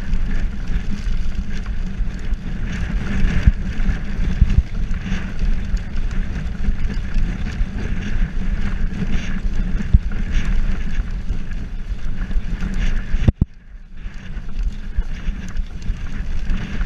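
Wind buffeting the GoPro's microphone as a mountain bike is ridden over grass, with rumble and small rattling knocks from the bike on the uneven ground. A sharp knock comes about thirteen seconds in, followed by a short drop in the noise.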